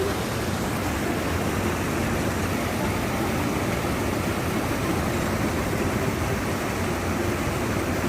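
Steady rush of the Panimur waterfall's water, an even noise with no breaks.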